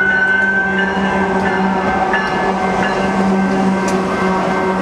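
BNSF diesel locomotives passing at speed, their engines running with a steady low tone over the rumble of wheels on rail. A high whine fades out about a second in, and the coal cars begin rolling by near the end.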